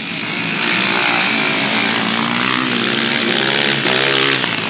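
Racing quad (ATV) engines revving hard on a motocross track, the pitch rising and falling as the throttle opens and closes.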